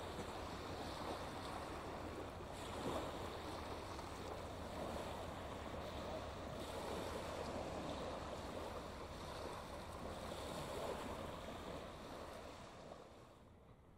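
Small waves lapping and washing onto a shingle beach in a steady wash of water over pebbles, fading out near the end.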